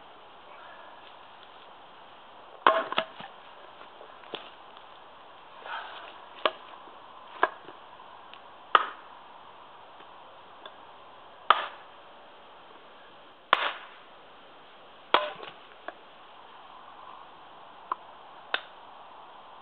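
Prandi Yankee small axe splitting a short piece of wood on a chopping block: about a dozen sharp chops at uneven intervals of one to two seconds, starting about three seconds in.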